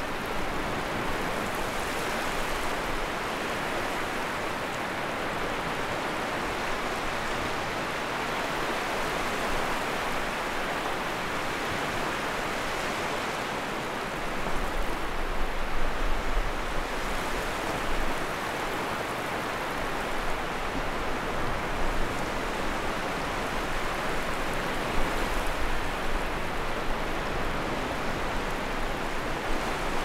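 Sea waves washing onto the shore in a steady rush of surf, swelling louder a few times about halfway through and again near the end.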